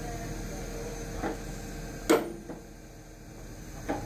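Sledgehammer blows on the burned-off rivet remnants in a steam locomotive's steel frames, knocking them out: three sharp strikes, a lighter one about a second in, a loud one about halfway with a short ring after it, and another near the end.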